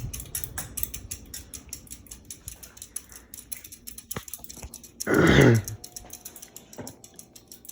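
Harbor Breeze Builders Best ceiling fan coasting down after being switched off, giving a steady rhythmic ticking of about five clicks a second as it turns. About five seconds in, a short loud voiced sound lasting about half a second cuts in over the ticking.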